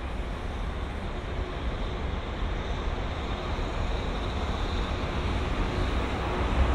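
Freight train approaching on the line, its low rumble growing steadily louder.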